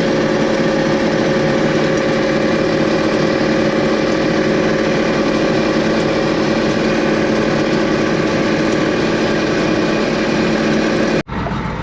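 Combine harvester running steadily while shelling corn, its engine and machinery making an even hum with a few fixed tones. It cuts off suddenly near the end.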